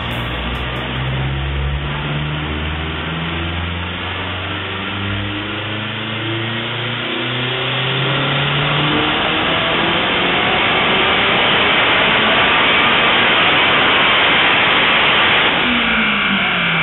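Acura RSX's four-cylinder engine making a dyno pull at full throttle: its pitch climbs steadily and it grows louder for about fifteen seconds, then the revs drop as the throttle is released near the end.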